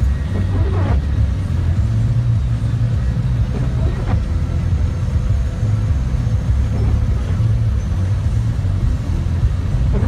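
Steady low rumble of a car driving on a snow-covered road, heard from inside the cabin: engine and tyre noise.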